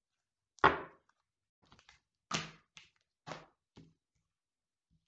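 Tarot cards knocked and set down on a tabletop: a series of about five sharp thumps. The first, just over half a second in, is the loudest, with a few lighter taps after it and the others spread through the next three seconds.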